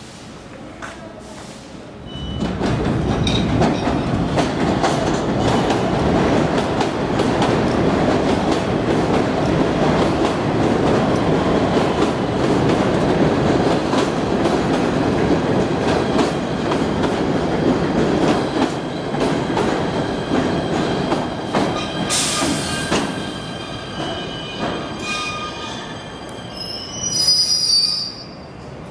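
Passenger train passing close at a station platform: a loud, steady rumble and rattle of wheels on rail that starts suddenly about two seconds in and eases off after about twenty seconds. Near the end come a burst of hiss and a high-pitched wheel squeal.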